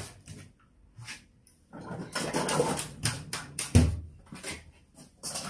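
Household handling noises: a few light knocks and clicks, a second or so of rustling, and one heavy thump about four seconds in.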